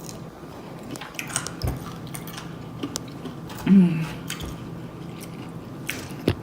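Close-up mouth sounds of chewing food, with sharp wet clicks and lip-smacking scattered throughout, and a brief falling hum of a voice a little before the middle.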